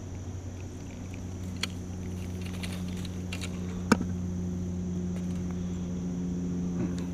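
A steady low hum under a steady high insect buzz, with a few light clicks and one sharp click about four seconds in from handling a spinning rod and reel.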